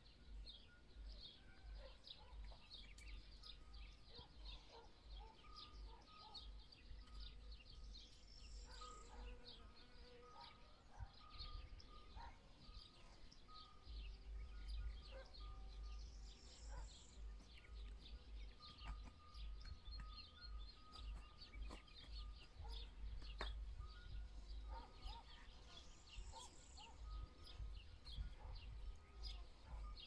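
Faint outdoor countryside ambience: many small birds chirping continuously, with a higher call heard three times, over a gusty low rumble of wind on the microphone.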